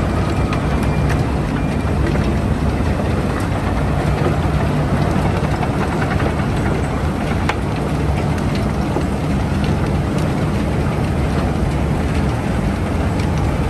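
Bucket wheel excavator digging coal: a steady, heavy mechanical rumble with a dense clatter and scattered sharp clicks of coal falling from the buckets.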